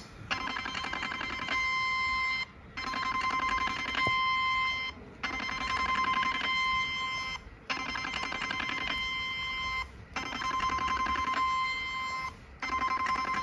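Portable 7D HIFU handpiece firing its ultrasound shots: a rapid rattle of clicks with a steady beep joining partway through. It comes in runs of about two seconds, six times, with short pauses between.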